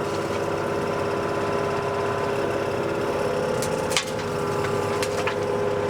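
Compact excavator's diesel engine running steadily at a held speed while it loads a dumper, with a few short sharp clicks about three and a half to five seconds in.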